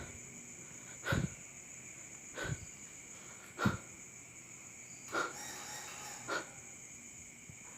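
Five slow footsteps, about one every second and a quarter, over a steady high insect chirring in the background.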